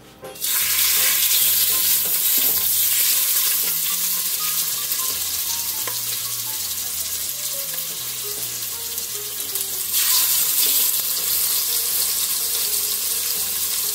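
Boneless chicken thighs going into hot olive oil in an Instant Pot on high sauté: a loud sizzle starts suddenly about half a second in and carries on steadily. It grows louder again about ten seconds in as more pieces go into the oil.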